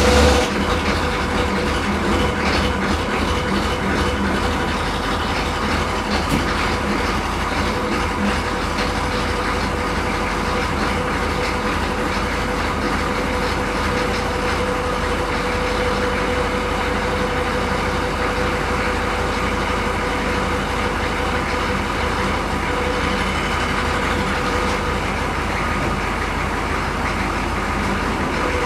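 Chevrolet CUCV M1028 pickup's 6.2-litre diesel V8 idling steadily, just fired up after sitting for five days, a little louder in the first second as it settles.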